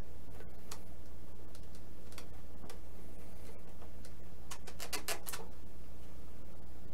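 Light scattered clicks, then a quick run of several taps about four and a half seconds in, from a small stick working epoxy into the stabilizer joint of a balsa model airplane, over a steady low hum.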